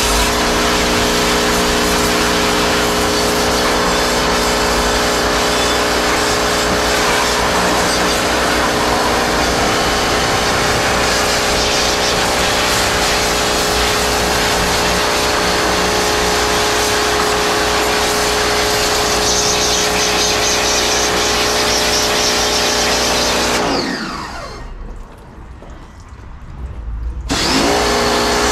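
Electric pressure washer running, its motor and pump humming steadily under the hiss of the water spray on the car body. About 24 seconds in the motor winds down and goes quiet, then starts up again about three seconds later.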